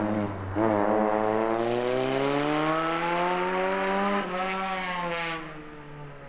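Rally car engine accelerating hard under load, its pitch climbing steadily for about three and a half seconds, then dropping sharply about four seconds in and sliding down as the sound fades.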